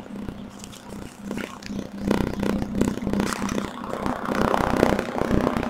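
Hands turning over an opened plastic cordless drill battery pack, giving small irregular clicks, scrapes and rattles, busier from about two seconds in, over a steady low hum.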